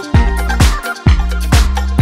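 Background music with a steady, heavy beat, about two beats a second; the bass drops out briefly about a second in.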